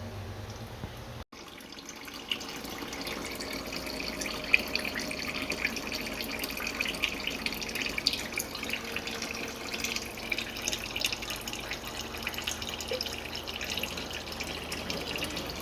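Oil pouring in a steady stream from a car's drain-plug hole into a drain pan, a continuous splashing trickle with small drips, starting after a brief gap about a second in.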